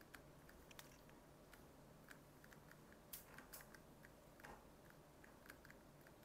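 Near silence with faint, irregular light taps and ticks of a stylus writing on a tablet screen.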